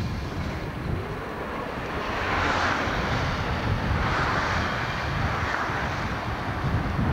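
Articulated tram running along street rails, a steady rumble with wheel-on-rail noise that swells from about two seconds in as the tram draws near.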